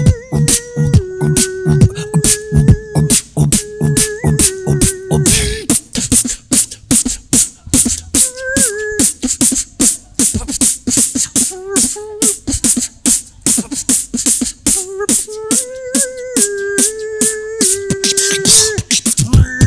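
Two-person beatbox tag team performing into handheld microphones: fast, dense vocal percussion, with a held vocal melody line in steady notes over it for the first five seconds or so and again in the last few seconds. In between, the beat runs mostly on its own with short pitched fragments.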